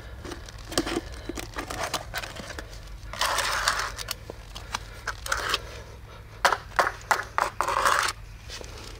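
Plastic food container's lid being pried off and handled: crackling, rubbing plastic with sharp clicks, a longer rustle about three seconds in and a cluster of louder clicks and scrapes near the end.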